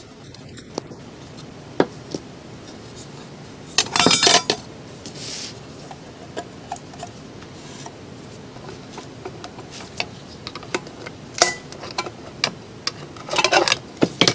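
Brass bezel ring and hand tools handled on a workbench: scattered clicks, taps and clinks, with two short rattling bursts, one about four seconds in and one near the end, as the bezel is worked off a wooden wall barometer.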